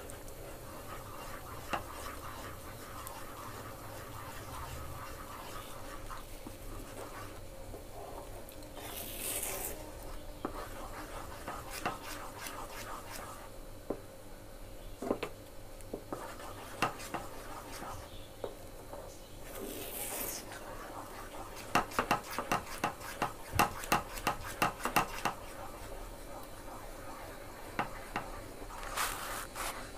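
A spatula stirring and scraping a thick, thickening milk pudding mixture in a metal pan, with soft rubbing and scattered taps against the pan, and a quick run of taps about two-thirds of the way through.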